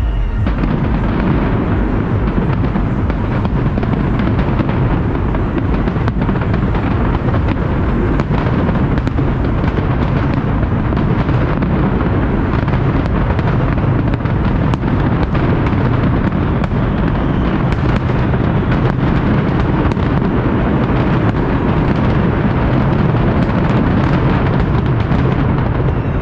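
Fireworks display at its height: a dense, unbroken barrage of many overlapping bangs, steady and loud without a pause.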